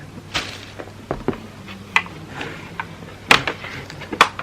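A plastic mini fridge being handled: a scattering of light knocks and clicks, the sharpest about three seconds in and again near the end.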